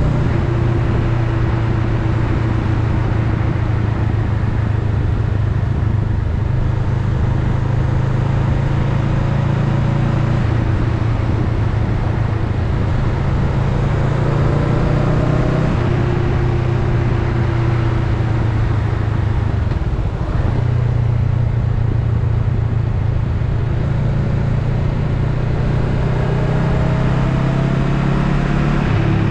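Honda Rebel 500's parallel-twin engine running steadily while riding, its pitch rising and falling with throttle and speed, over an even rush of wind and road noise.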